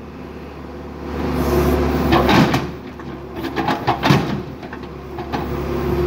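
John Deere backhoe's diesel engine running while its bucket beats a steel truck fuel tank, giving a series of metallic bangs and crunches; the loudest come about two and four seconds in.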